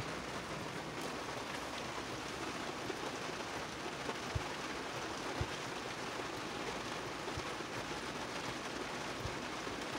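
Heavy rain pouring down on a parked truck, heard from inside the cab as a steady hiss, with a few faint soft thumps.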